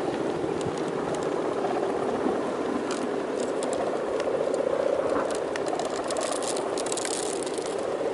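The hummer (guangan) of a Balinese bebean kite droning steadily with a slightly wavering pitch, with strong wind crackling on the microphone.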